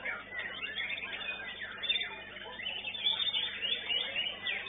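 White-rumped shama (murai batu) singing: an unbroken run of short, high whistled notes that slide quickly up and down.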